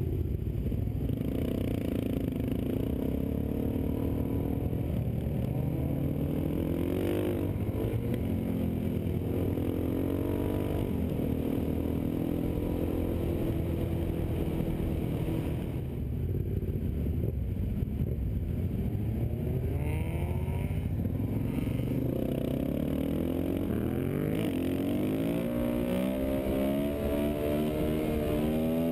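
Suzuki DR-Z400 supermoto's single-cylinder engine heard from onboard, accelerating up through the gears in several rising sweeps, each followed by a drop in pitch at the shift, over steady wind rumble.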